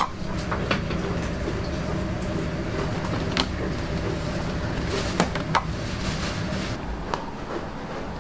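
Steady low rumble of restaurant background noise, with several sharp clinks and knocks of dishes and a metal bowl on a tray as it is set down.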